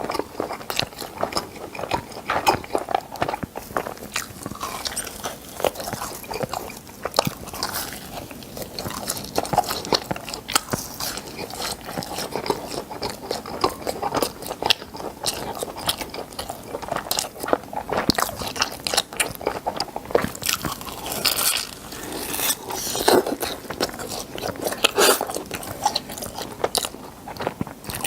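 Close-miked biting and chewing of crunchy food, with dense irregular crunches and crackles throughout.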